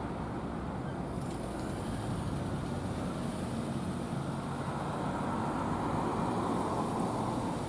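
Steady road traffic noise: a continuous rumble of vehicle engines and tyres on the road.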